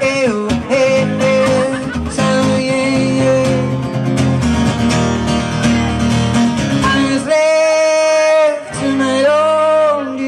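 A man singing into a microphone while strumming an acoustic guitar. About seven seconds in, the guitar stops for a moment under a long held sung note, then comes back in.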